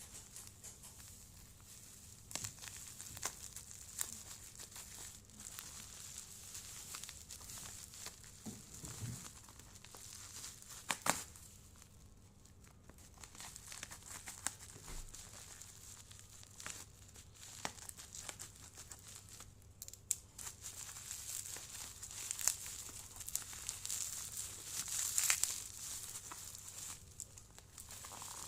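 Parcel packaging being opened by hand: irregular crinkling and tearing of wrapping, with scattered sharp clicks.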